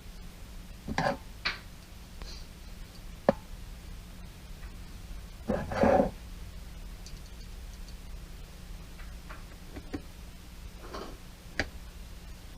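Scattered clicks and knocks of the dishwasher's plastic cover panel being handled and fitted back on, the longest about six seconds in, over a faint steady low hum.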